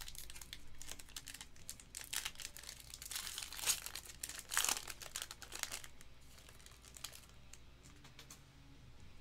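A foil trading-card pack being torn open by hand, its wrapper crinkling and crackling. The crackle is loudest in the middle and dies down after about six seconds.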